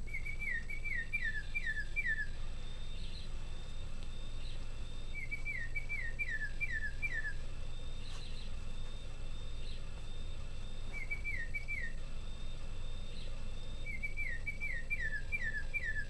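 A National Audubon Society quartz singing bird clock playing a recorded bird song in its low-pitched, slowed version. The song comes as phrases of quick down-slurred whistles, about six to a phrase, four times over with pauses between; the third phrase is shorter.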